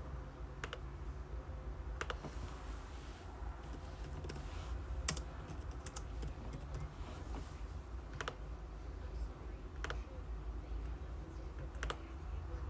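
Scattered keystrokes on a computer keyboard, single sharp clicks every second or two, over a steady low hum.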